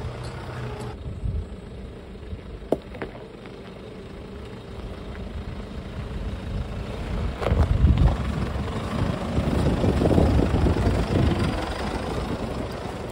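A Toyota 4x4 crawling slowly over a rocky dirt track, its engine running low and steady while the tyres grind over stones. A couple of sharp knocks from stones come about a third and about halfway through, and the sound grows louder in the second half as the vehicle comes close.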